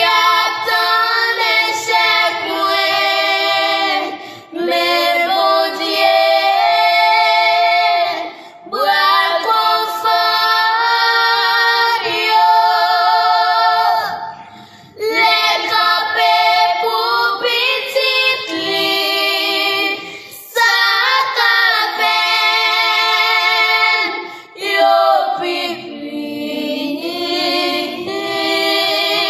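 Three young girls singing a Haitian Creole gospel song together, in phrases of a few seconds each with short breaks for breath between them.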